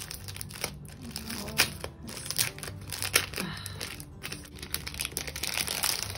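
Clear plastic packaging bag crinkling as hands peel it open and pull it off, in a busy run of sharp crackles.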